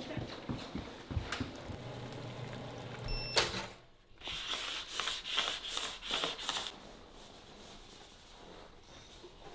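Kitchen clatter and a low hum, then a sharp click about a third of the way in as a four-slot toaster pops up. A run of short scraping, rustling noises follows, then quiet room tone.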